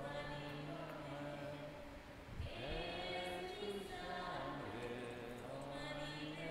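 An offertory hymn being sung, with phrases of long held notes and a short break about two seconds in.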